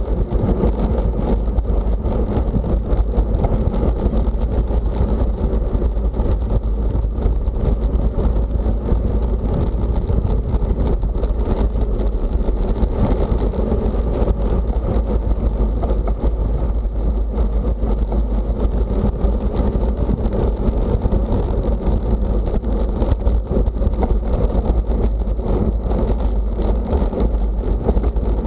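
Steady, loud wind rumble on the microphone of a camera riding along in a bicycle race.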